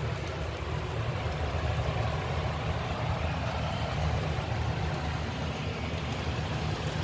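A steady low mechanical hum with a faint hiss over it.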